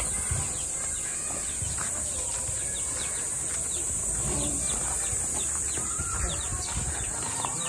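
Rural outdoor ambience: a steady high insect drone with birds chirping in short calls, and soft footstep thumps on a dirt path.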